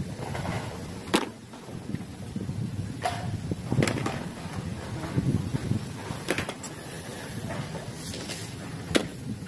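Mud-coated plastic toy vehicles being set down one at a time on a wooden board, making a handful of light knocks spread over several seconds against a low outdoor background hum.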